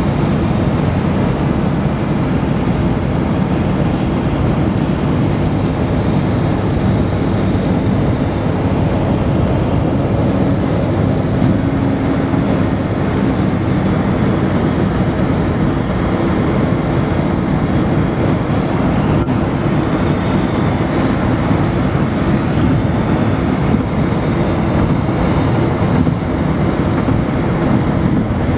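Steady road noise inside a car's cabin at highway speed: an even, low rumble of tyres and wind.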